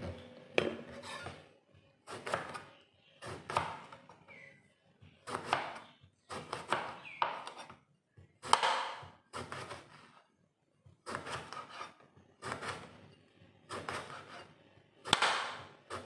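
A large kitchen knife slices a brinjal (eggplant) into rounds on a cutting board. Each stroke ends in a thunk on the board, about once a second and unevenly spaced.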